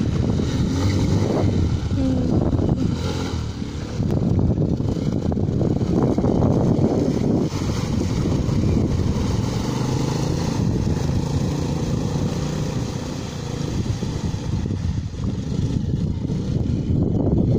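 Italika DM 150 dirt bike's single-cylinder engine running and revving as the bike is ridden through shallow lake water, with water splashing at the wheels.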